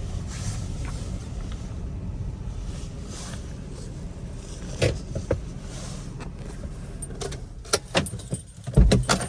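Hyundai Grand i10 Nios running at low speed while being parked, a steady low rumble; from about halfway there are scattered clicks and rattles, ending in a cluster of clicks and a heavy thump, the loudest sound.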